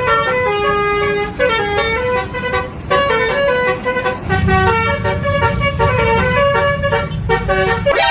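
Bus telolet horn playing a quick multi-note tune, each note short and stepping up and down, over a steady low engine rumble that gets louder about halfway through.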